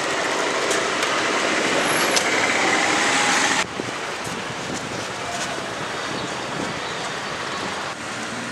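Steady road traffic noise. It is louder for the first three and a half seconds, then drops suddenly to a quieter steady rumble.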